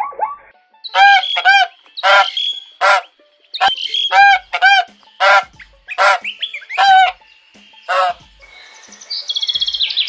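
Domestic goose honking repeatedly: about a dozen loud, short honks in quick succession. Near the end it gives way to a small bird's high, rapid chirping.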